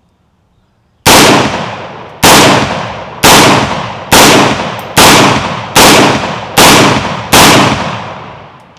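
Kel-Tec PLR-16 5.56 pistol fired eight times in semi-automatic, starting about a second in, at roughly one shot a second. Each shot is a sharp crack followed by a long echo that fades before the next.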